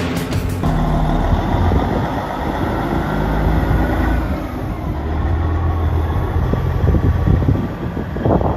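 Semi tractor's diesel engine running as the bobtail truck pulls away: a steady low rumble.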